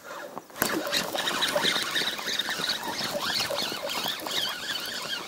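Spinning reel being cranked while a small pike is played on the rod: a dense, chattering run of reel clicks and whirring. It begins with a sharp knock just over half a second in.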